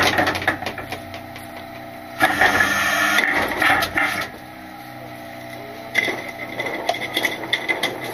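Load Master Legacy rear-loader garbage truck's hopper working over the running truck, with a steady low hum. Trash and the packer mechanism clatter loudly twice, about two seconds in and again from about six seconds in.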